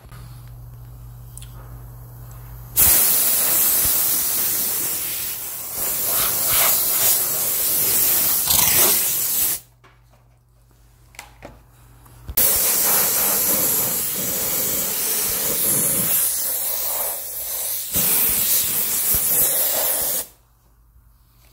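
Handheld steam cleaner jetting steam in two long hissing bursts of about seven seconds each, with a few seconds' pause between them, used to steam-sterilise a water purifier.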